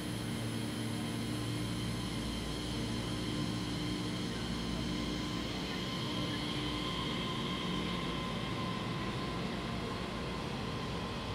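Taiwan Railway EMU3000 electric multiple unit departing and running past along the platform: a steady rumble of wheels on rail with the hum and whine of its traction motors.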